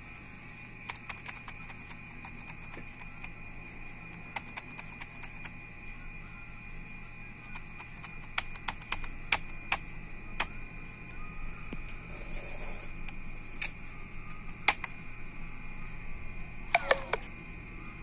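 Computer keyboard key pressed repeatedly in irregular taps, single clicks early and quicker runs later with a close pair near the end, while the PC boots, to get into the BIOS setup. A faint steady high tone runs underneath.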